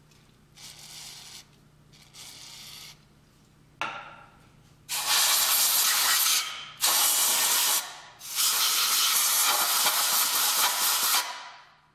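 Compressed-air blow gun hissing in bursts, blowing brake cleaner out of the freshly tapped injector bores to dry the cylinder head: two short, softer hisses, then three long, loud blasts from about five seconds in, each cut off sharply.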